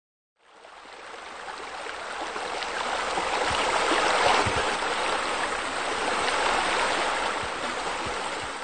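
Running water, as of a rock waterfall spilling into a swimming pool, with a steady splashing hiss. It fades in just after the start, swells toward the middle and fades out at the end.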